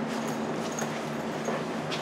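Meeting-room tone: a steady low hum with a few faint taps and rustles.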